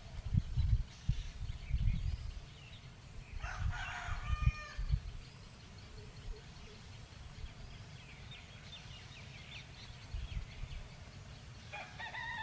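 A rooster crowing, one call of about a second and a half a little over three seconds in, with another fowl call starting near the end. Low muffled thumps and rumbles come and go through the first five seconds, and faint short bird chirps around the middle.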